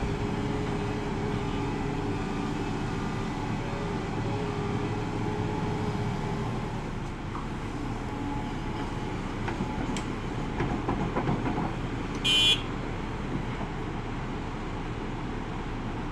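Hidromek 390 excavator's diesel engine running steadily under work, with a few clanks about ten seconds in and a short, high-pitched tone about twelve seconds in.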